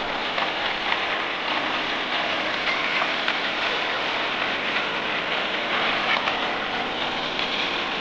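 Strong stream of water pouring from an outlet pipe and splashing down over a brick and stone ledge: a steady rushing, splashing noise.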